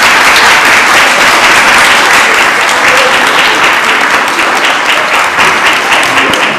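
A roomful of people applauding, many hands clapping steadily and loudly, easing a little near the end.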